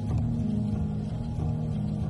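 Background music of sustained low notes, with the held pitch shifting about a second and a half in.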